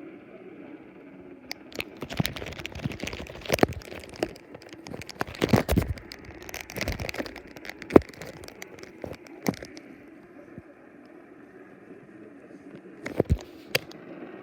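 AM radio reception full of static: irregular crackles and sharp pops of interference over a faint, muffled broadcast, the sign of poor AM reception. The crackling comes in clusters, with a quieter stretch in the middle and a final burst of pops near the end.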